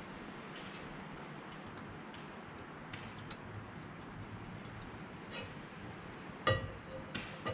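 Light metallic clicks and ticks of a steel straight edge and feeler gauge being handled against the deck of a 5.9 Cummins cylinder head during a flatness check, with a louder, briefly ringing metal clink near the end as the straight edge is set against the head.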